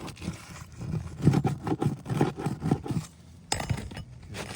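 A metal roofing tool scraping and clinking under an asphalt shingle in quick repeated strokes as a hidden nail is worked loose, with one sharper knock about three and a half seconds in.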